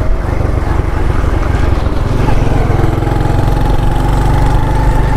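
A small engine running steadily close by: a low, even drone with a faint steady whine above it.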